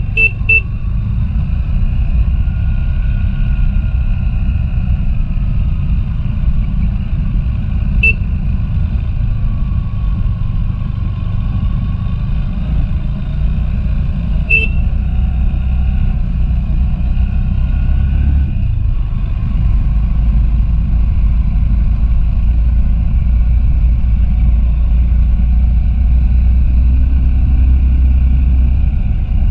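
Motorcycle engine running while riding on a dirt road, under a steady, heavy low rumble. Brief high beeps come at the start and twice later, about eight and fifteen seconds in.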